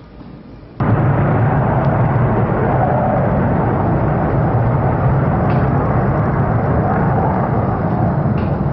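J-20 stealth fighter's twin jet engines running at high power on the takeoff roll: a loud, steady rushing noise that starts abruptly about a second in.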